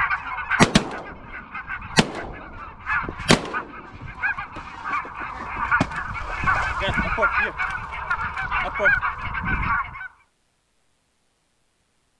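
A dense chorus of geese honking, broken by about five shotgun shots in the first six seconds, the loudest three a second or so apart. All sound cuts off abruptly about ten seconds in.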